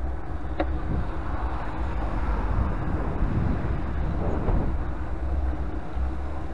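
Wind noise on a bicycle-mounted camera's microphone while riding, with road and traffic noise underneath.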